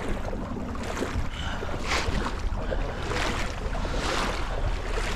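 Fast-flowing stream water rushing steadily, with wind buffeting the microphone in a low, uneven rumble.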